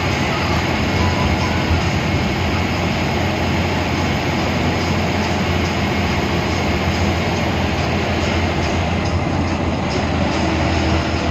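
Steady drone of an air-conditioned bus on the move, heard from inside the cabin: a low engine hum under a wide wash of road noise, holding even throughout.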